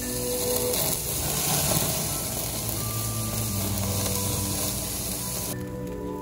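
Burger patties sizzling on a gas grill, with background music underneath. The sizzle cuts off abruptly near the end.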